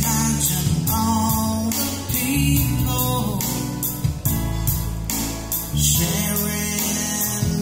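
A man singing into a microphone over his own Roland electronic keyboard accompaniment, slow held notes over a steady programmed drum beat.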